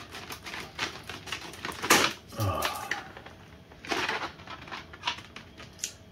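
A pack of reciprocating saw blades being opened and handled: rapid small clicks and rustling, with three sharper knocks about two seconds apart.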